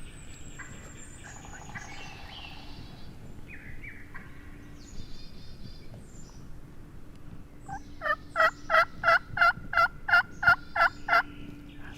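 Faint songbird calls, then near the end a loud run of about eleven short, evenly spaced turkey yelps, about three a second.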